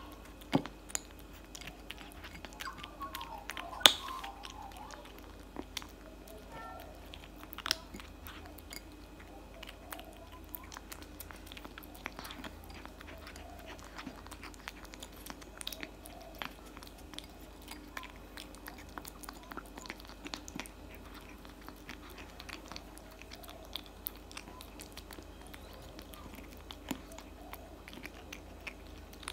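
Tabby kitten eating dry kibble from a bowl: close, irregular crunching and clicking as the pellets are bitten and chewed, with one louder click about four seconds in.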